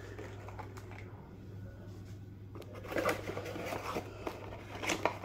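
Cardboard box and lure packaging being handled. Irregular scraping and rustling start about three seconds in, over a steady low hum.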